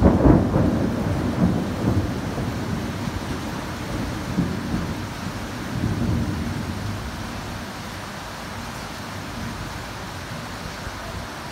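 Thunder rumbling, loudest in the first second or so, with further weaker rolls around four and six seconds in, then dying away into the steady hiss of heavy rain.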